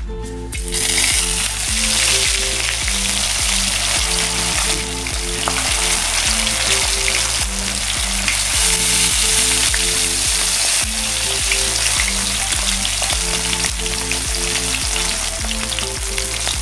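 Whole tilapia dusted with salt, pepper and cornstarch sizzling in hot oil in a frying pan. The sizzle breaks out suddenly under a second in as the fish goes into the oil, then holds steady. Background music with stepped low notes plays underneath.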